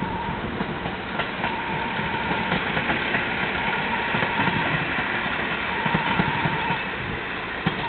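A JR Hokkaido KiHa 40 diesel railcar's engine running steadily as the railcar moves through the yard. A high beeping tone sounds on and off about every two seconds behind it.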